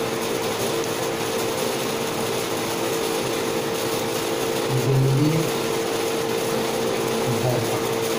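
A steady machine hum with hiss and a constant mid-pitched tone, unchanging throughout, with a short low sound about five seconds in.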